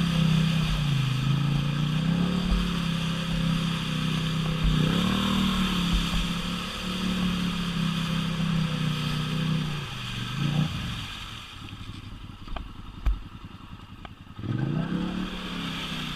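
Polaris Sportsman 1000 Highlifter ATV engine running and revving up and down under throttle for about ten seconds. It then drops back to a low idle with a few sharp knocks and clatter, and revs up again near the end.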